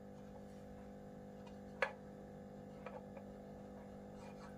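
Faint, irregular taps and clicks of a felt-tip marker against a whiteboard while writing, the loudest about two seconds in, over a steady low hum.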